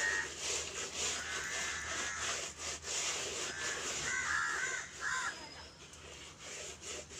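Rubber-gloved hands scrubbing a muddy tyre with soap powder: a steady rubbing and scraping. A few short calls sound over it, clearest about four to five seconds in.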